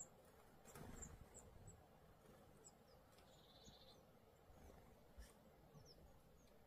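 Faint calls of small songbirds at a winter bird feeder: scattered short, high chirps, with one short buzzy call about three seconds in.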